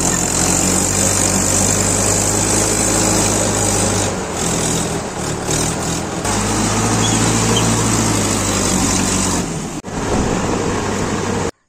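Diesel tractor engine running steadily, heard from the driver's seat, with abrupt changes in the sound about four, six and ten seconds in.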